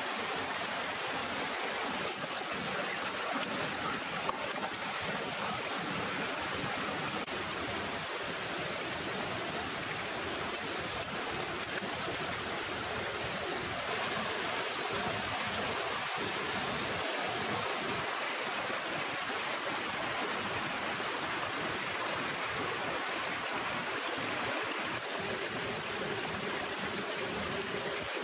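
Small jungle waterfall pouring into a rocky stream pool, making a steady rush of water.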